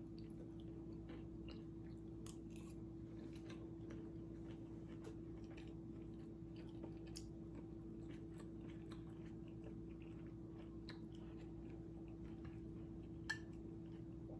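Faint chewing and soft clicks of a metal spoon against bowls while eating quinoa and soup, over a steady low hum. One sharper click comes near the end.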